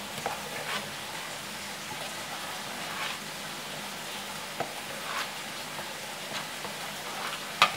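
Spoon stirring thick, wet flour batter full of small mairo fish in a plastic bowl: steady squelching with soft scrapes every second or so, and one sharp tap near the end.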